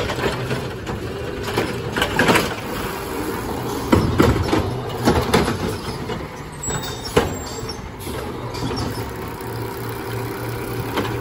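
Peterbilt 520 refuse truck's engine running steadily while its hydraulic side-loader arm works, with scattered clattering knocks from the arm and carts. A short air-brake hiss comes near the middle as the truck pulls up to the next carts.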